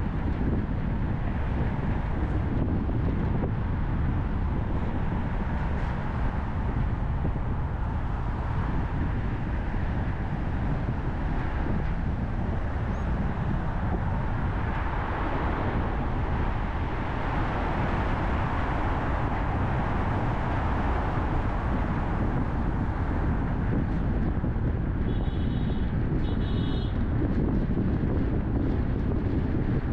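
A car driving, with steady road and wind noise heaviest in the low end and a swell of tyre noise around the middle. Two brief high chirps come near the end.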